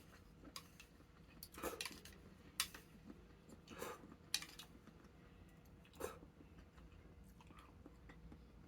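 A person eating at the table: quiet, intermittent chewing and mouth sounds, with a few sharp clicks of tableware.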